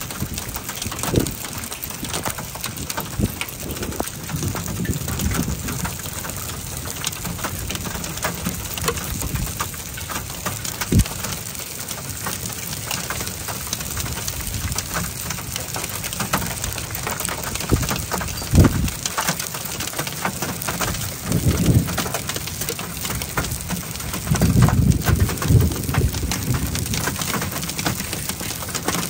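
Heavy thunderstorm rain coming down hard, a steady dense hiss full of sharp pattering hits. Several short low rumbles break through, the loudest about 18 seconds in and again from about 24 to 26 seconds in.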